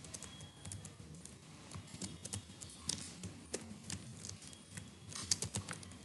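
Computer keyboard typing a line of text: quiet key clicks coming in quick, irregular runs of keystrokes.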